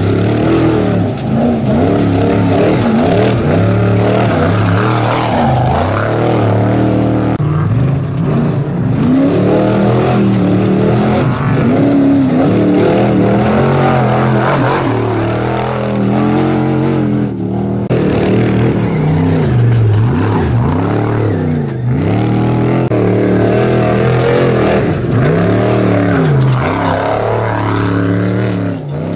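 Trophy Truck Spec desert race trucks' V8 engines revving hard as they accelerate past, one truck after another, the pitch climbing and dropping with each gear and pass. The sound breaks off abruptly a few times where one pass cuts to the next.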